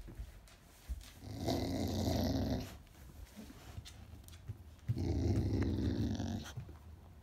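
Dog making a low noise with a toy held in its mouth, twice, each time for about a second and a half.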